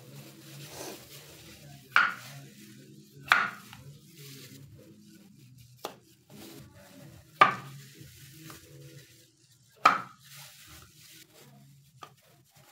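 Chef's knife cutting through a peeled pale green vegetable onto a wooden cutting board: about six sharp knocks at uneven intervals, four of them loud.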